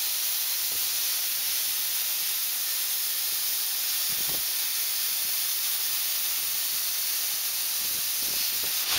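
Robotic arc welding: the welding arc gives a steady, even hiss.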